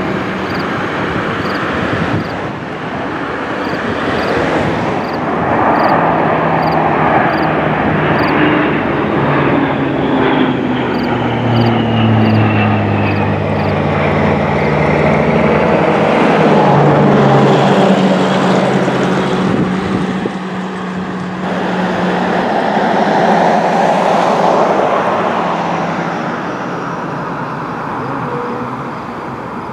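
A Lockheed C-130J Hercules's four turboprops drone as it flies a low pass, their tones dropping in pitch as it goes by. Near two-thirds of the way through, the sound changes to a broad jet-engine rush that swells and then fades, from the C-5M Galaxy's four turbofans on the runway.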